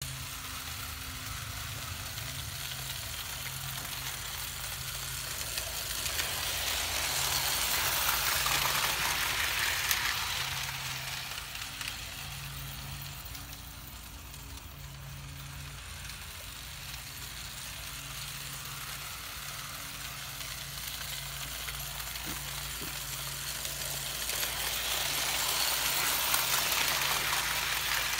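Lionel No. 8 toy electric locomotive running on metal track pulling tinplate cars: a steady electric motor hum with the rumble of wheels on the rails. It grows louder about a third of the way in and again near the end as the train comes close.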